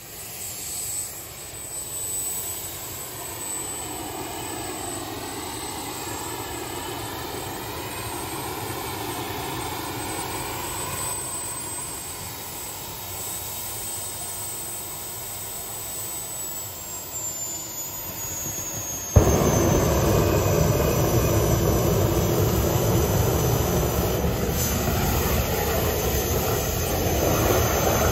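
Small turbine jet engine running with a high whine. About two-thirds of the way in, it jumps abruptly to a much louder full-power blast with the afterburner lit, and it holds there.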